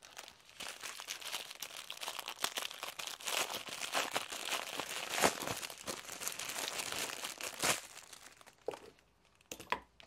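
Plastic packaging crinkling as hands unpack a diamond painting kit's packet of drill bags and its paper canvas. The crinkling goes on for most of the time, dies away about eight seconds in, and a few light clicks follow near the end.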